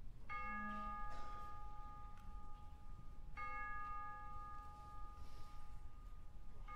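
Two struck bell tones about three seconds apart, each ringing on and slowly fading, from the percussion of a wind band.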